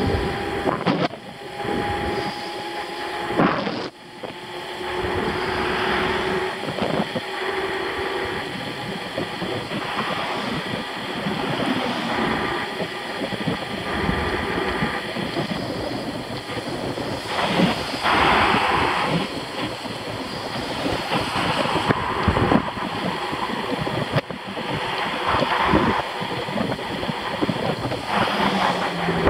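Wind rushing over the microphone of a bicycle descending a paved highway at about 45 mph. It surges and dips in gusts, with a brief drop about four seconds in.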